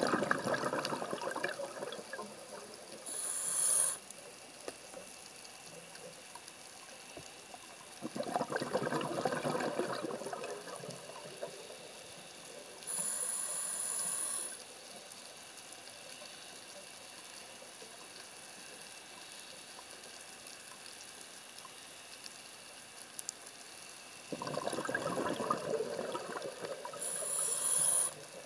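A scuba diver breathing through a regulator underwater: three bubbling exhalations of two to three seconds each, at the start, about eight seconds in and near the end, and three short high hissing inhalations in between, with long quiet stretches.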